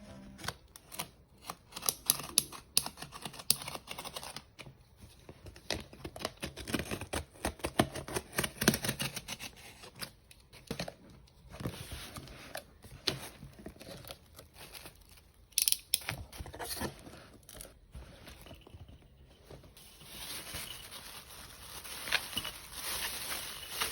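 Packaging being opened by hand: irregular tearing, rustling and crinkling of paper and plastic wrapping, broken by many sharp clicks and snaps, with a steadier rustle near the end.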